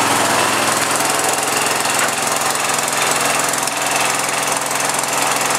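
1968 John Deere 140 garden tractor's single-cylinder 14 hp Kohler K321 engine running steadily shortly after a cold start.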